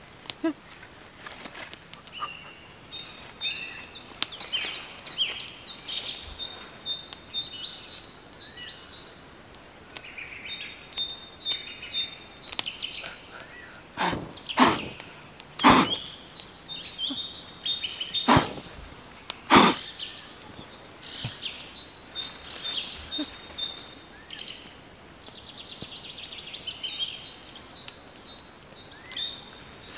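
Forest birds singing, one repeating a short high trilled phrase every few seconds. About halfway through comes a cluster of five loud sharp cracks, the loudest sounds.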